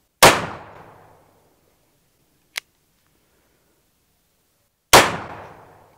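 Two shots from an 8-inch Pietta-made Colt black-powder revolver loaded with 30 grains of Pyrodex P behind a .44 lead ball, about four and a half seconds apart, each report dying away over about a second. There is a single short click between the shots.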